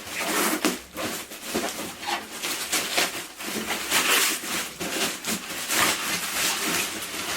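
Plastic packaging being handled and pulled off a boxed ring light, rustling and crinkling in irregular bursts.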